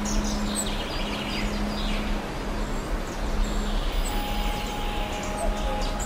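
Several birds singing and chirping, with short high notes and quick glides, over a steady background rush. A low steady hum runs beneath for the first few seconds.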